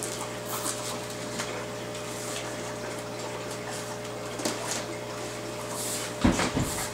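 Utility knife slitting packing tape along the top of a cardboard box: a few faint scratchy cuts, then the cardboard flap knocked and rustled about six seconds in. A steady low hum runs underneath.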